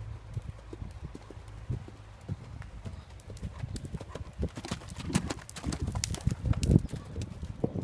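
Hoofbeats of a ridden white horse on the soft dirt of a riding arena: an uneven run of thuds and clops. They grow loudest past the middle as the horse passes close by.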